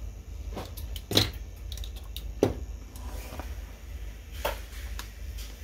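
Several sharp clicks and light knocks of test leads and a probe clip being unhooked and set down on a workbench, over a steady low hum.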